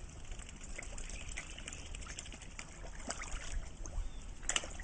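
Pond water splashing and dripping as black swans dip their bills and koi feed at the surface: scattered small splashes and drips, with a sharper splash near the end.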